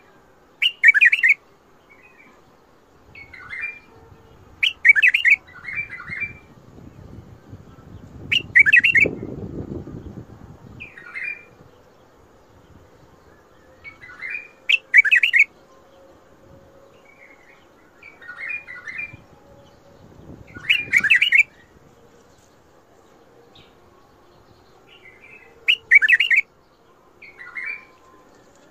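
White-eared bulbul (Iraqi bulbul) singing short warbled phrases every few seconds, some loud and some softer. A low rumble comes through about nine seconds in.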